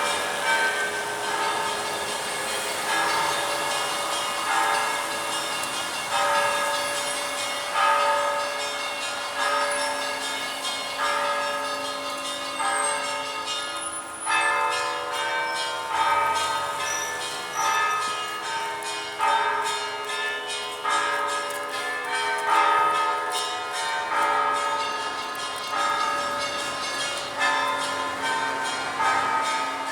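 Monastery bila, struck plates rung like bells, played in a continuous rhythmic peal of several pitched ringing tones. A heavier accented stroke lands about every one and a half seconds, with quicker lighter strokes between, and the tones overlap and ring on.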